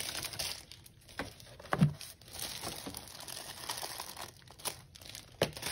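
Clear plastic packaging bag crinkling and rustling as a heat press is handled inside it, with a single soft thump about two seconds in.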